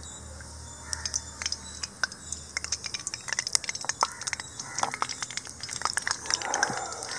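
Cooking oil pouring from a small pan into a cast-iron kadai, with a run of irregular crackles and ticks that grows denser about three seconds in.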